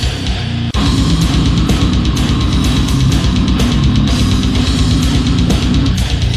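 Slam/brutal death metal music: distorted electric guitars over fast drums. A brief break under a second in is followed by a rapid, even kick-drum pattern under the full band.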